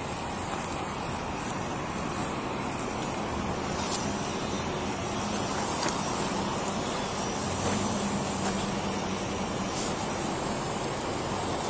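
Steady motor-vehicle and traffic noise, with a couple of short sharp clicks near the middle.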